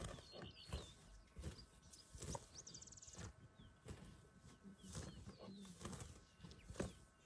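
A white rhino grazing: faint, irregular crunches and rips as it crops and chews grass. Small birds chirp now and then in the background, with a brief rapid trill about three seconds in.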